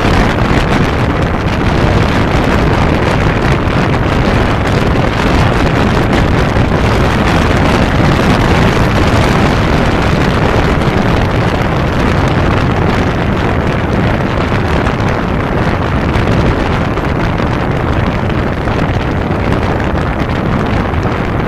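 Steady wind rushing over the microphone of a motorcycle at road speed. Beneath it the 1992 Kawasaki Zephyr 550's air-cooled inline-four engine and tyre noise run evenly, with no gear changes or revving.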